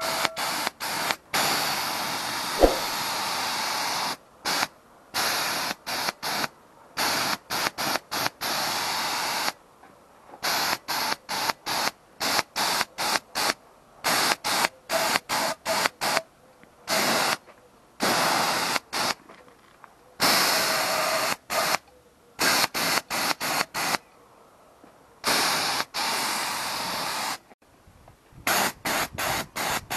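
Compressed-air paint spray gun hissing in repeated on-off bursts as the trigger is pulled and released: one long spray at the start, then many short ones. One sharp click about two and a half seconds in.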